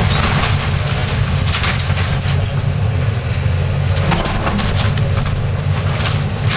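Hydraulic excavator demolishing a wood-frame house: its diesel engine runs steadily under repeated cracking and splintering of timber as the bucket tears and crushes the framing. The cracks come thickest in the first two seconds and again about four seconds in.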